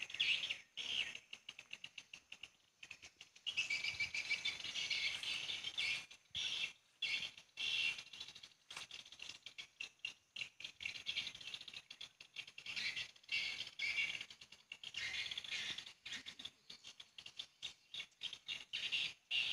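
Edible-nest swiftlets twittering: a dense stream of fast, high chirps and rattling clicks that swells and fades in waves.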